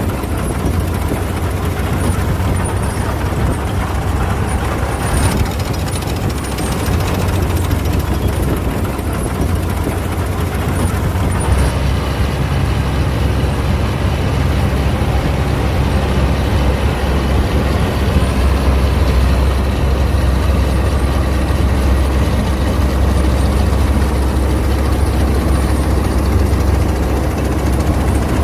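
Claas Mercator 50 combine harvester running steadily while harvesting wheat: a loud, continuous low engine drone. The drone shifts lower and heavier about twelve seconds in.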